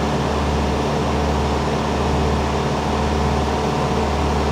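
Truck engines idling: a steady, even mechanical drone with a low hum.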